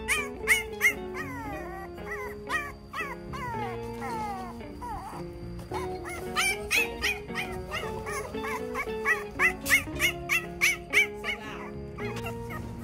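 French bulldog puppies yipping and whining: quick high yips, several a second, with a few longer falling whines a few seconds in. The yipping stops near the end. Background music with held chords plays underneath.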